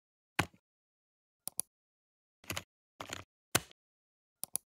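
Computer mouse clicking: a handful of short, sharp clicks with dead silence between, two of them in quick pairs about a second and a half in and again near the end.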